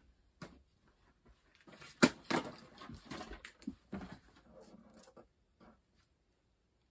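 Scattered small knocks, taps and rustles of things being handled close by, with one sharper tap about two seconds in.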